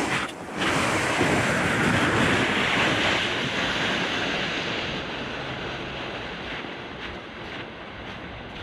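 A loaded plastic sled dragged across the ice, a steady scraping hiss that slowly fades as it moves away, with wind on the microphone.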